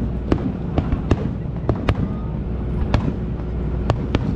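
Aerial firework shells bursting overhead: a string of sharp bangs and cracks at irregular intervals, about ten over four seconds, above a steady low rumble.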